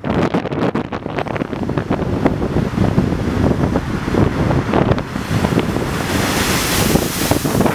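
Storm-driven Lake Michigan waves crashing against a concrete seawall, with strong wind buffeting the microphone. About five seconds in, a large wave breaks into spray right beside the wall, bringing a louder rushing hiss.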